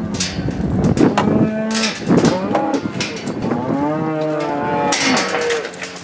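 Angus cattle mooing, several calls overlapping in the first two seconds, then one long moo that rises and falls from about three and a half seconds in, with sharp knocks scattered throughout.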